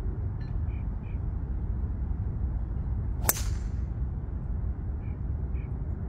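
A Titleist TS4 driver striking a teed golf ball: one sharp crack about three seconds in, with a brief ring after it.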